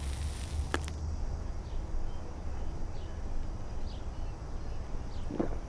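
Quiet room or outdoor ambience: a steady low rumble with a few faint short chirps, and a single click about a second in. Near the end a brief rising cry begins.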